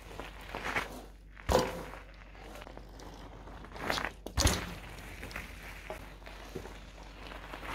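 Mountain bike tyres on loose gravel: a sharp thump about a second and a half in, then about four seconds in a crunching of gravel as the bike goes over the obstacle and lands a bunny hop with a heavy thud.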